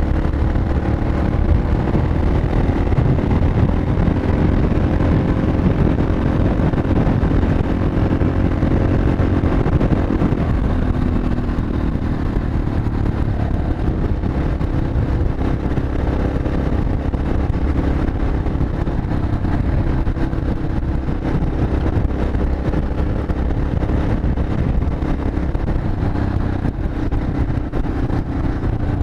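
Yamaha XT 600E's single-cylinder four-stroke engine running steadily at cruising speed, its note holding nearly level, under a heavy, steady low rumble of wind and road noise.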